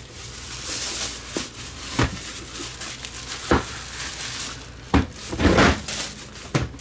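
Plastic wrapping crinkling as a plastic pet food feeder is pulled out of its bag and turned over, with several sharp knocks of the plastic unit being handled. The loudest stretch, a cluster of rustles and knocks, comes about five seconds in.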